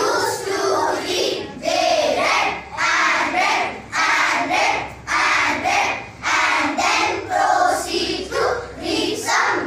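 Group of schoolchildren reciting an English poem in unison, in a rhythmic, chant-like delivery.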